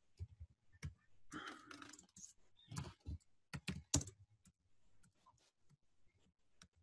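Computer keyboard typing: quick, irregular runs of keystrokes for the first four seconds, thinning to a few sparse taps near the end.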